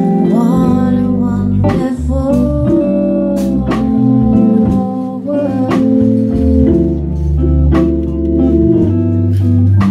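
Live jazz combo playing: a woman singing over held organ chords and a walking low bass, with electric guitar and drum and cymbal strikes keeping time.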